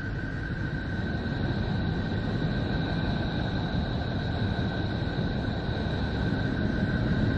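Space-sound recording presented as the sound of Neptune: a steady low rumble with two steady high tones held above it, growing slightly louder.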